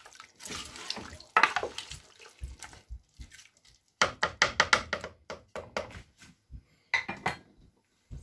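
Wooden spoon stirring mutton, onion and whole spices in water inside a metal pressure cooker: wet sloshing and scraping with irregular knocks of the spoon against the pot, and a quick run of strokes about four seconds in.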